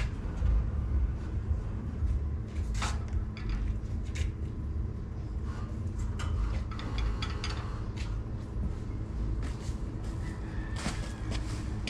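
Scattered metal knocks and clanks as steel parts of a 6x6 screen-printing carousel press are handled and fitted around its central star hub, over a steady low rumble.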